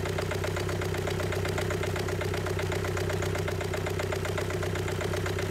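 Renault 1.5 dCi four-cylinder diesel engine idling steadily with an even diesel clatter. It is running for an injector return-flow test in which its injectors show high leak-back, the sign of worn injectors.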